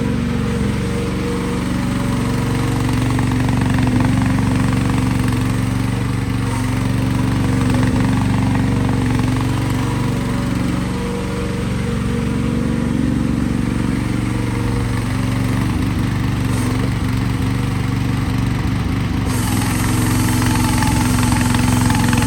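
The AGT KX12-CB mini excavator's small engine running steadily at working speed. About three-quarters of the way through, a brighter hiss suddenly joins it.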